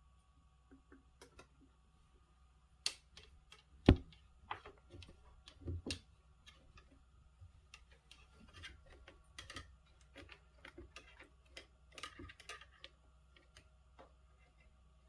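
A cat playing at hunting, batting and pouncing on a toy: irregular clicks, taps and knocks, with one loud knock about four seconds in.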